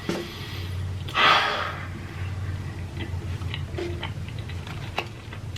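Close-miked eating: chewing and wet mouth clicks, with one louder noisy burst about a second in.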